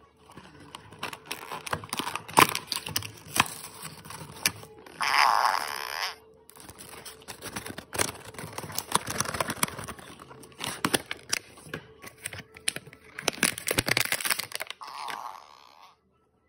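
Cardboard box and plastic packaging being opened and handled: irregular crinkling, tearing and clicking. Two louder noises about a second long stand out, about five seconds in and near the end.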